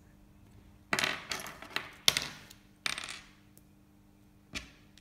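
Small plastic Lego pieces clicking and rattling as they are handled, in several short clusters, with one last single click near the end.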